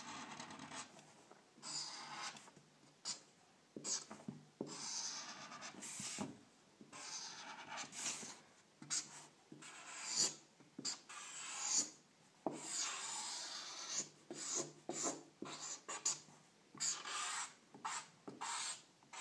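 Large permanent marker drawn across paper, its felt tip rubbing on the sheet in irregular short strokes and a few longer sweeps with brief pauses between them.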